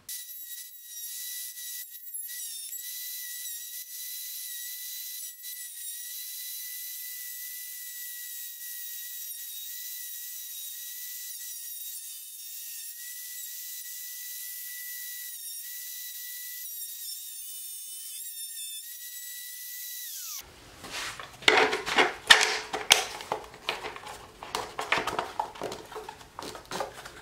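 Bosch router running steadily as it hogs out a blind pocket in plywood, heard as a thin, high-pitched whine with no low end. It stops about twenty seconds in, and a run of knocks and clatter follows as a plastic switch box is pushed and fitted into the pocket.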